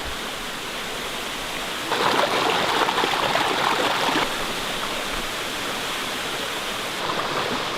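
Waterfall rushing steadily, swelling louder for about two seconds partway through.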